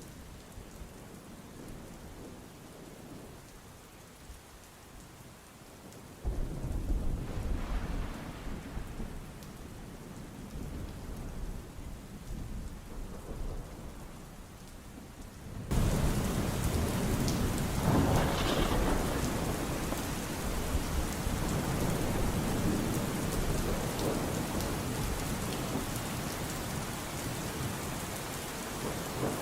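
Thunderstorm: steady rain with rolling thunder. A low rumble of thunder comes in suddenly about six seconds in, and at about sixteen seconds the storm turns abruptly louder, with heavier rain and another roll of thunder.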